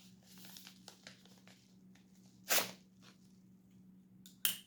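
A small mail package being opened by hand: packaging tearing and crinkling in faint scratches, with two short, louder rips, one about halfway and one near the end. A faint steady hum sits underneath.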